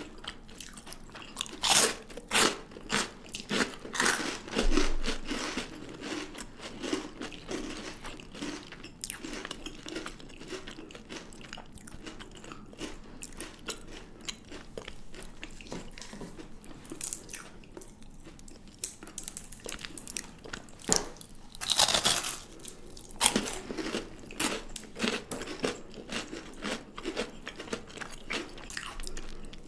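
Chocolate being bitten and chewed close to the microphone: crisp snaps and crunches, loudest in clusters about two seconds in and again around twenty-two seconds, with quieter chewing between.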